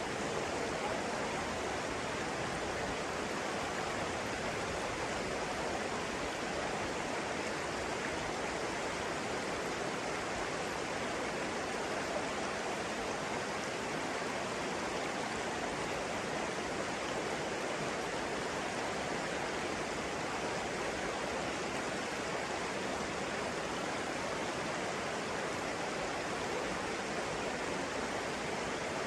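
Flowing water rushing steadily and evenly, with no bird calls standing out.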